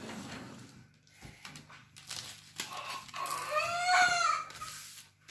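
A young child making a high-pitched vocal noise while breathing in deeply, a drawn-out sound that rises and then falls in pitch, starting about three seconds in and lasting under two seconds. Before it there is only faint rustling and clicking of hands handling stickers.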